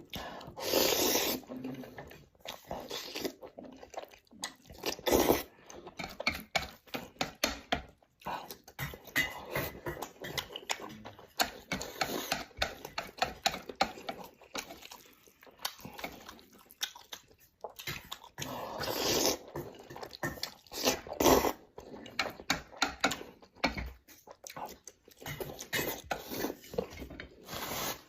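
Close-miked eating: a person chewing mouthfuls of stir-fried instant noodles with sausage and egg, in many short irregular smacks. Louder, longer noisy bursts come about a second in, around five seconds, and twice near the 19 to 21 second mark.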